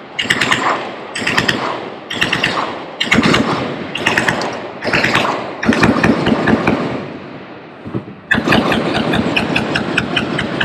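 Automatic machine-gun fire: short bursts about once a second, each trailing off in echo, then a long unbroken burst of rapid fire starting near the end.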